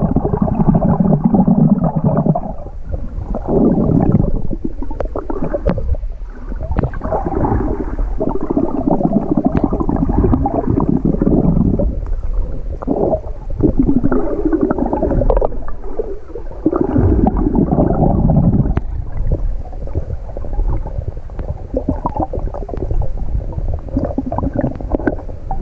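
Muffled water sloshing and gurgling, heard through a GoPro's waterproof housing as the camera bobs just under the surface. It comes in uneven surges every second or two, with scattered light ticks.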